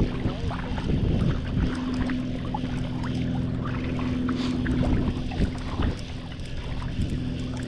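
Shallow water sloshing and wind on the microphone around a wading angler, with a steady low hum underneath and scattered small clicks and splashes.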